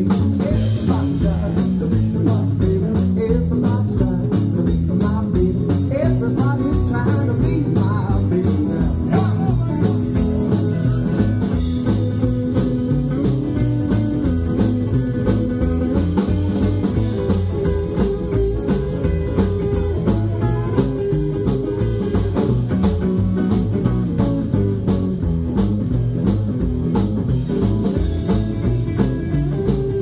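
Live rockabilly band playing an instrumental section: electric guitars, upright double bass and drums keeping a steady beat.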